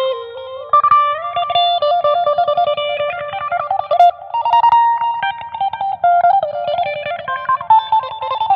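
Electric guitar played through a Zoom G1XN multi-effects pedal: a single-note lead melody with held, sustained notes and quick runs between them.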